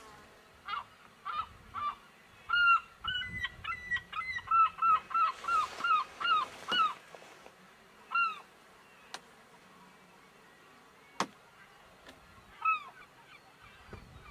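Gulls calling: a run of short, arched yelping notes that speeds up into a rapid series, then single calls now and then.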